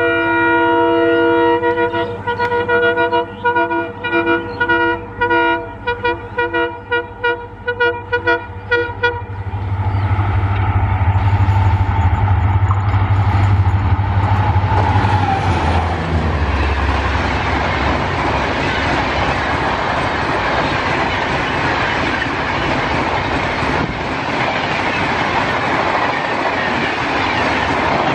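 Indian Railways WDP4 diesel locomotive's air horn sounding one long blast, then a quick series of short toots about two a second. About ten seconds in, the locomotive's engine swells and drops in pitch as it passes. Then comes the steady clatter of passenger coaches rolling by at speed.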